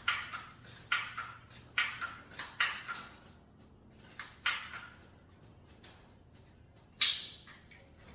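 A series of sharp knocks, about one a second at first, then a few scattered ones, with one louder knock about seven seconds in.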